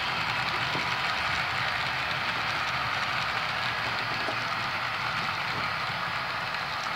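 HO-scale model freight cars rolling past on the track: a steady whir of small metal wheels on the rails with faint clicks.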